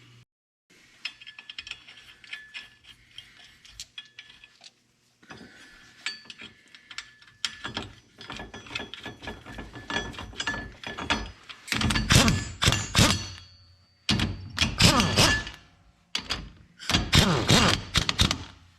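Metal lathe turning down steel wheel nuts: a faint steady whine with many small metallic clicks, then several loud rattling, clattering bursts of about a second each in the second half.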